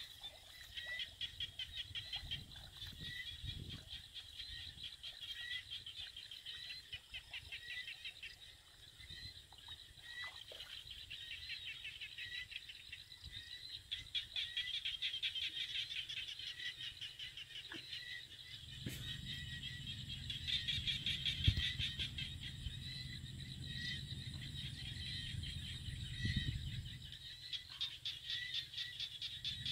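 Steady high trilling chorus of small animals in a rice field, with a short chirp repeating about once a second. A low rumble comes in during the second half.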